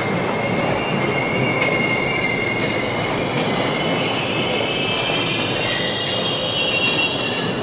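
New York City subway train moving through the station: a steady rumble of the cars with high, drawn-out wheel squeal in several tones, and sharp clicks of the wheels over the rails.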